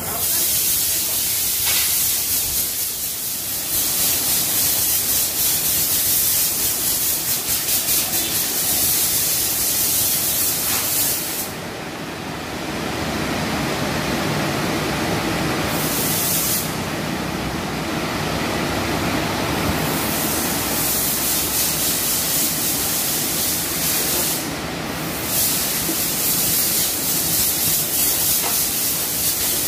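Automatic rollover car wash spraying water over a car with a steady hiss, the hiss dropping away three times for a few seconds, over a lower rumble from the gantry and its rotating brushes.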